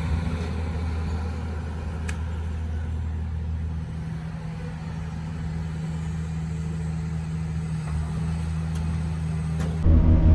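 A heavy machine's engine running steadily with a low hum, with a faint click about two seconds in; the sound cuts off near the end.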